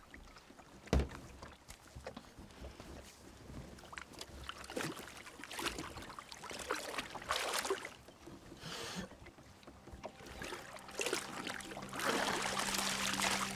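Water slapping and sloshing against a small rowboat as a wet rope is hauled in over its side, with one sharp knock about a second in.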